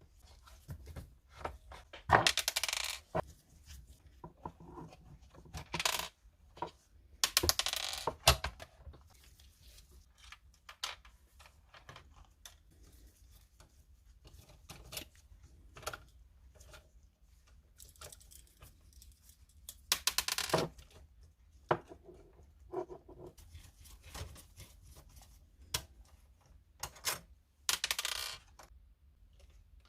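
Irregular clicks, taps and clatter of hard printer parts being handled and pried apart during disassembly. Several louder rattling clatters come a few seconds in, around eight seconds, around twenty seconds and near the end.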